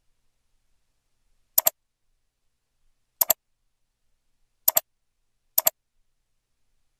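Computer mouse button clicked four times, each click a quick double tick of press and release, with near silence between.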